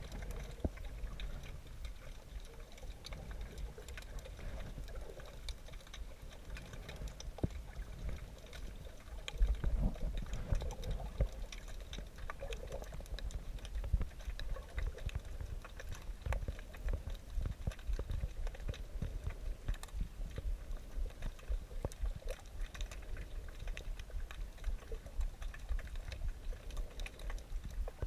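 Water movement as heard while snorkeling with a GoPro: a low rumble with many small sharp clicks and crackles throughout, louder from about nine seconds in.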